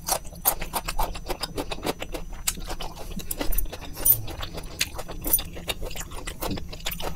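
A person chewing a slice of raw tomato close to a clip-on microphone: a rapid run of wet mouth clicks and smacks.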